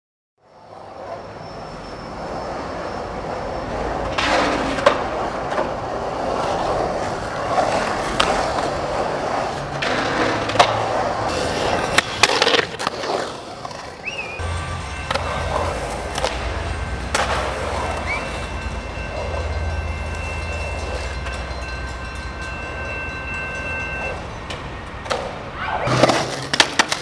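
Skateboard wheels rolling on concrete bowls, with sharp clacks and slaps of the board and trucks striking the concrete several times, the loudest cluster near the end. A steady low rumble joins about halfway through.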